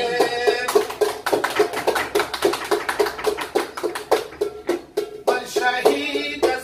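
Plucked string instrument playing a fast, rhythmic tune of quick strokes with one note struck again and again. A man's singing voice comes in about five seconds in.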